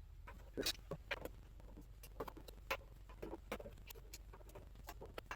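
Irregular light clicks and taps, a dozen or so spread over a few seconds, from hands handling the preamp's metal chassis and parts.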